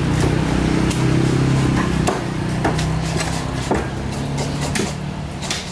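Knife blade repeatedly striking a large barracuda on a thick wooden chopping block, a sharp knock roughly every half second to second, over a steady low motor hum.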